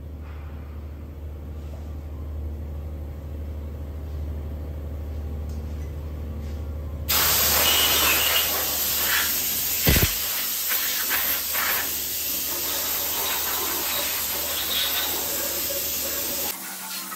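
Pressure-washer jet spraying a bare engine block. A low steady hum comes first; about seven seconds in, a loud, steady hissing spray starts suddenly, with a single sharp knock around ten seconds.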